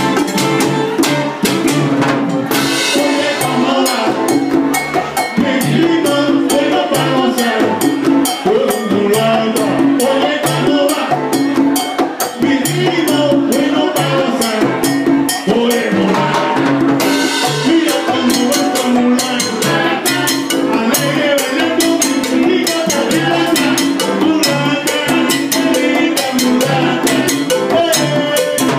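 Live Latin band playing salsa, with a steady drum-kit and percussion rhythm under the band.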